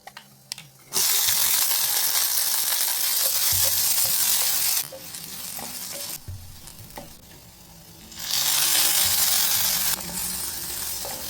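Food frying in hot oil in a pan: a loud sizzle from about a second in, dropping back to a quieter sizzle near the halfway point, then a second loud sizzle from about eight seconds in, with a few soft knocks between.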